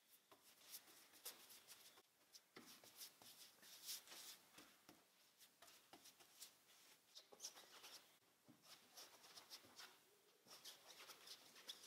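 Faint, repeated scratchy strokes of a paintbrush spreading adhesive over a fiberglass hardtop shell.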